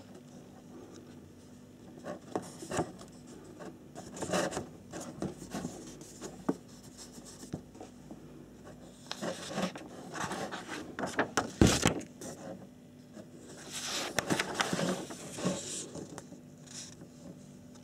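Paper pages of an instruction booklet being turned and handled, rustling and scraping in several bursts, with one sharp tap about two-thirds of the way through.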